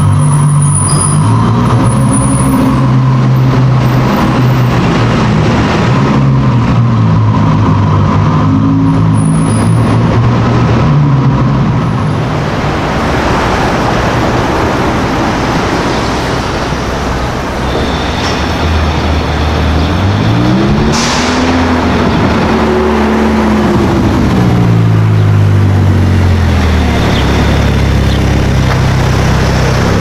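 Ferrari engines: first a Ferrari GTC4Lusso's engine running inside a parking garage, its note rising and falling, then a Ferrari F8's twin-turbo V8 amid street traffic noise. The F8's V8 revs up and back down about two-thirds through, then settles to a steady low note.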